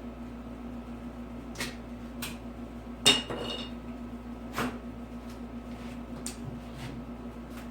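Wooden door shims being cut off at the jamb: scattered sharp clicks and knocks, the loudest a ringing clink about three seconds in, over a steady low hum.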